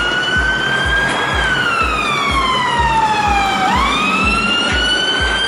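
Police siren wailing: a slow rise, a long fall, then a quick sweep back up, over a steady music beat of about two thumps a second.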